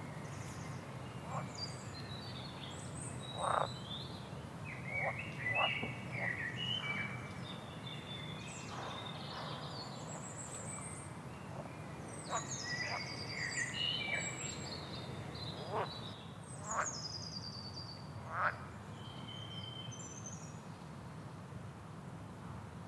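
Songbirds singing: a busy run of short chirps, trills and high whistled phrases, some overlapping, over a steady low hum.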